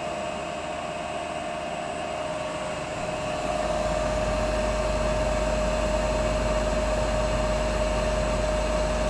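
Chinese CNC lathe's spindle running with a steady whine. About three seconds in, a deeper rumble joins and the sound grows louder.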